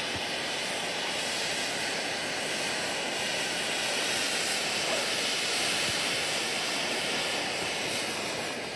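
A ground firework burning with a steady rushing hiss that drops away near the end.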